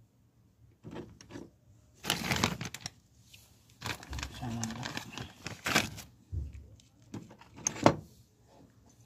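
Hands working on a truck valve housing at the bench: a cloth rubbing over the metal and parts knocking and clicking, in several short bursts with a sharp click near the end.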